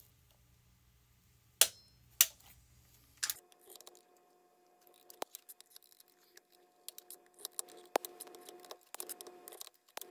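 Quarter-inch click-type torque wrench on a chainsaw's cylinder bolts: a few sharp clicks in the first three seconds as it breaks over at its 102 inch-pound setting, then a run of lighter, irregular clicks.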